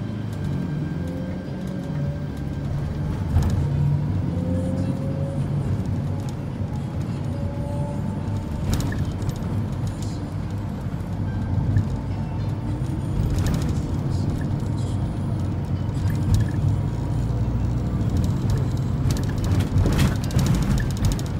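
Cabin noise of a Mercedes-Benz Sprinter 516 CDI minibus under way: its four-cylinder turbodiesel and road noise make a steady low rumble, with a few faint short rising whines in the first several seconds.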